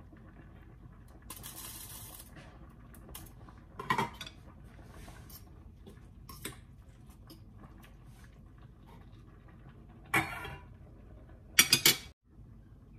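Metal fork clinking now and then against a stainless steel pot while stirring boiling spaghetti, then a loud clatter of a few strikes near the end as the pot's metal lid is set back on.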